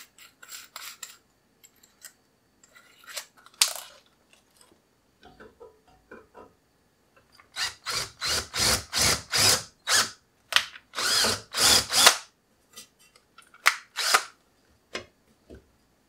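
Cordless DeWalt drill boring out pilot holes to a larger size in a hard drive rack, run in a quick series of about nine short trigger bursts past the middle. Scattered clicks and knocks from handling come before and after.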